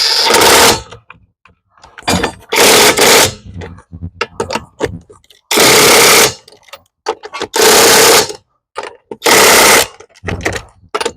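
Impact wrench firing in about five short bursts, each a second or so long with pauses between, running the wheel's lug nuts on.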